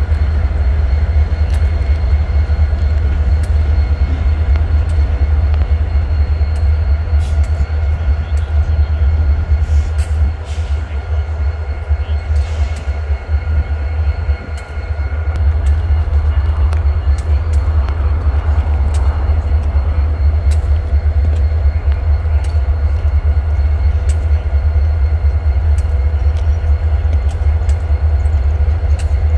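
Diesel locomotive running with a steady low drone.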